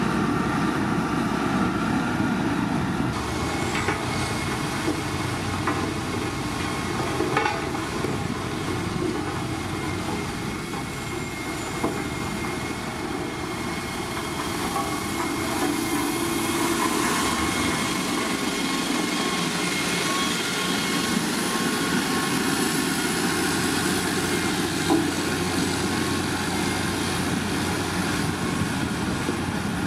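Single-drum road roller's diesel engine running as its steel drum rolls over loose crushed stone: a steady mechanical rumble with a rattle and a few sharp knocks.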